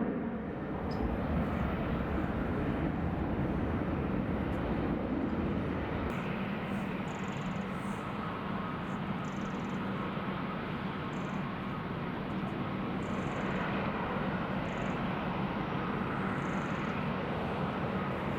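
Jet airliner engines, heard as a steady, even rush of noise.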